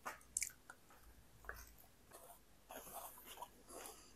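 Faint clicks and scrapes of a fork and spoon against a paper-lined plate, with quiet chewing.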